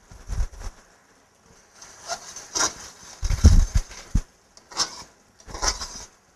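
Slotted metal spatula scraping and knocking around a metal wok of thick curry as it is stirred, in irregular strokes with the heaviest knock about halfway through. A faint steady hiss from the hot pan runs underneath.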